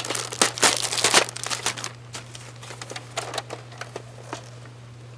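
Thin plastic wrap crinkling and crackling as it is peeled off a plastic toy blaster. The crinkling is busiest in the first two seconds, then thins to a few faint rustles.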